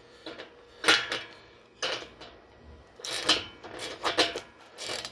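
A 10mm socket and ratchet clinking and rattling on a bolt in the steel bench frame: about five separate short metallic clatters as the bolt is tightened.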